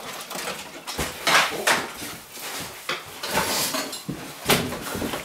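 Irregular clatter of dishes and cutlery being handled: a string of sharp knocks and clinks at uneven intervals.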